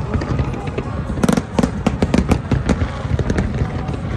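Aerial fireworks display going off in rapid succession: a dense run of bangs and crackles over a continuous low rumble.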